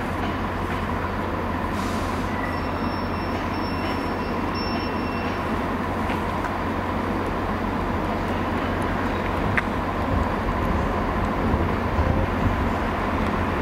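Diesel multiple unit train running slowly in on the station tracks: a steady engine hum and wheel rumble that grows a little louder over the last few seconds, with a faint high whine a few seconds in.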